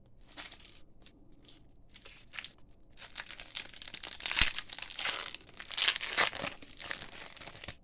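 Booster pack wrapper being crinkled and torn open: scattered crackles, then a dense run of crinkling in the middle with a sharp snap about four and a half seconds in.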